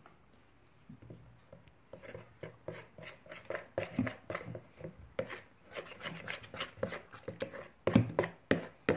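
Spoon stirring glue, soap and borax water in a plastic bowl: quick, irregular scraping and knocking strokes against the bowl, starting about a second in and getting louder toward the end, as the borax activator is mixed in and the mixture starts to turn into slime.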